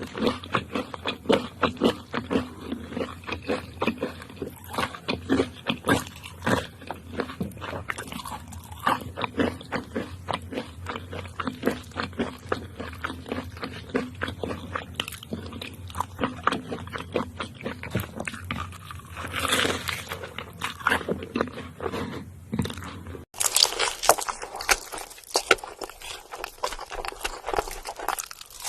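Close-miked chewing and crunching of crispy food, a dense run of irregular crunches and mouth clicks. The sound breaks off sharply about 23 seconds in and the crunching resumes without the low background hum.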